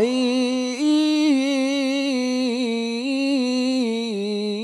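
A man's voice in melodic Quran recitation (tilawah) of the Basmala, drawing out one long unbroken melisma between 'ar-Rahman' and 'ar-Rahim'. The voice steps between held notes with quick wavering turns.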